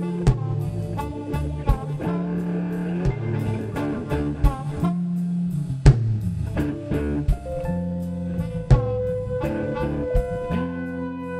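Live blues-funk band playing an instrumental passage: electric guitar, a steady bass line and drum kit, with a bowed violin and a harmonica holding long notes over them.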